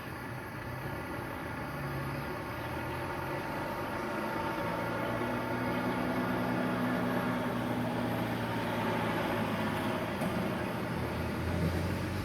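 A motor vehicle's engine running steadily, getting louder over the first half and then holding level.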